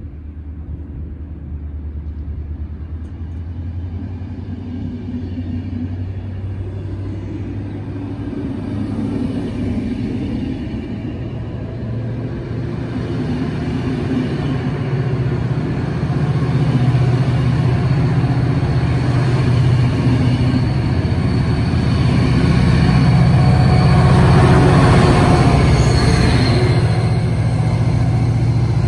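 Double-deck passenger train running past on the rails, with a DSB ME class diesel locomotive pushing at the rear. The wheel-and-rail noise and the locomotive's low, steady engine drone grow steadily louder, peaking as the locomotive passes near the end.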